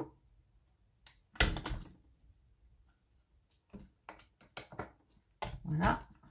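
Handling noises close to the microphone: a dull double thump about a second and a half in, the loudest sound, then a quick run of small clicks and taps a couple of seconds later.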